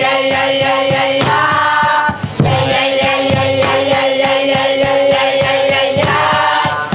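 Group of voices singing together over a steady percussive beat of about four strikes a second. The sound breaks off briefly about two seconds in.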